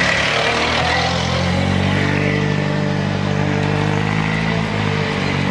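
Citroën Xsara WRC rally car's turbocharged four-cylinder engine running at steady low revs.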